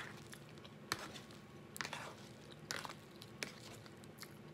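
Metal fork scraping and tapping in an aluminium foil pie tin while scooping chicken pot pie: about four short, sharp clicks, roughly one a second.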